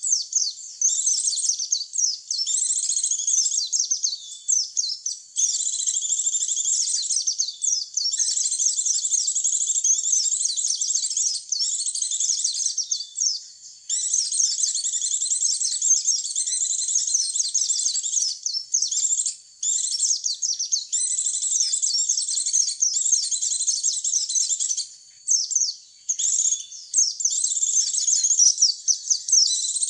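White-eyes (pleci) twittering in long runs of rapid, high chirping, broken by short pauses. It is a lure song played to draw in wild white-eyes.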